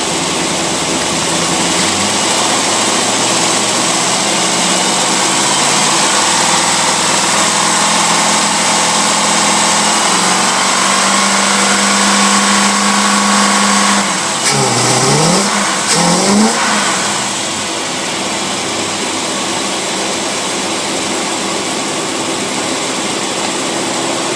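Test engine running on a marine Rochester two-barrel carburetor, its speed climbing in steps for about fourteen seconds. It then surges and stumbles for a few seconds, and its tone drops away about two-thirds of the way in, leaving a steady hum. The carburetor has gone extremely lean as the test motor runs out of fuel.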